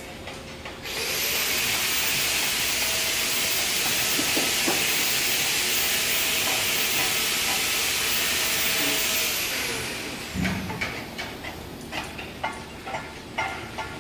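TIG (GTAW) welding arc on a TP304 stainless steel pipe, hissing steadily with a thin high whine for about nine seconds. It then fades out over about a second as the whine falls in pitch. It is followed by scattered clicks and scraping.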